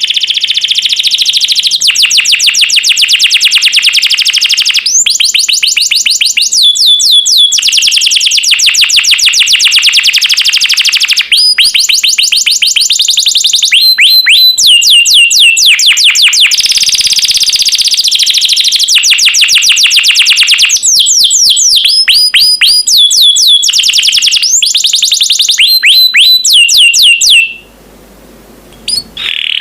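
Domestic canary singing a long, fast song of rapid trills and rolling runs of repeated chirps, phrase after phrase with brief breaks. The song stops near the end, then resumes.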